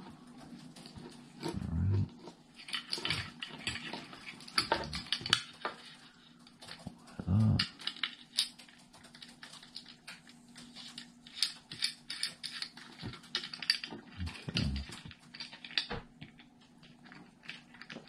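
Alloy bike rack and its metal support struts being handled and fitted together: many small metal clicks and taps, with a few dull thumps about two seconds in, midway and near the end.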